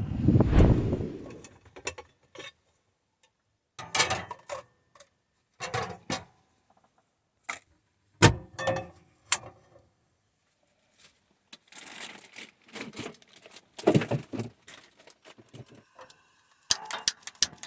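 Scattered clicks, knocks and rustles of things being handled, a few at a time, with silent gaps between them.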